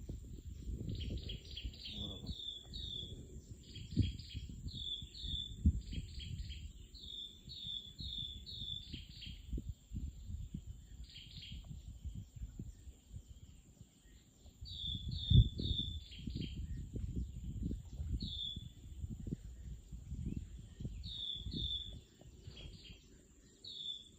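A bird calling in runs of short, high chirps, several a second, over a steady thin high insect whine. Underneath is uneven low rumbling noise, with a sharp thump about fifteen seconds in.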